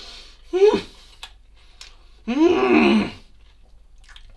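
A man's wordless vocal sounds: a short hum about half a second in, then a longer, louder groan about two seconds in, with a few faint clicks between.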